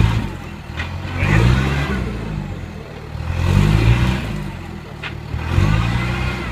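Land Rover Perentie's engine revving in four repeated surges, each climbing and falling back, about every two seconds, as the bogged vehicle tries to climb out of a mud hole. Two sharp clicks, about a second in and about five seconds in.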